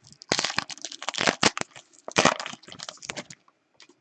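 Trading-card pack wrapper being torn open and crumpled, a dense run of crackling for about three seconds that stops near the end.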